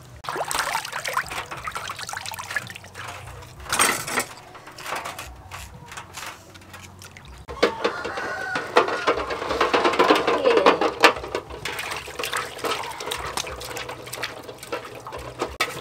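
Water splashing and sloshing in a large metal basin as hands wash a pig's head, then rinse eggs in a plastic basket. The splashing is irregular and grows louder about halfway through.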